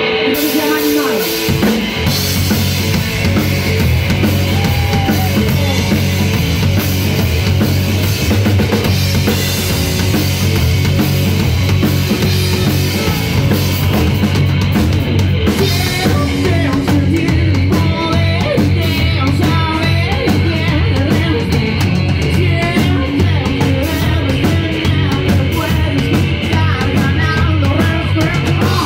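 A rock band playing live, led by a drum kit with electric guitars and bass, and a male voice singing into a microphone through the PA.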